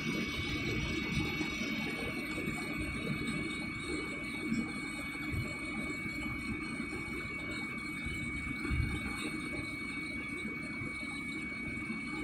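Steady cabin noise of a jet airliner in flight: a continuous rumble and rush of engine and airflow noise, with a thin steady high tone over it.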